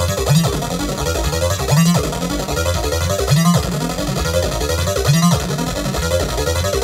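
Moog Grandmother analog synthesizer running its arpeggiator: a fast, continuous run of repeating notes, with a low note coming round about every one and a half seconds.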